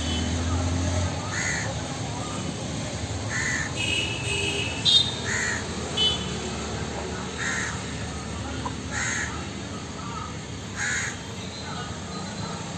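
A bird calling over and over, one short call about every two seconds, over steady background noise.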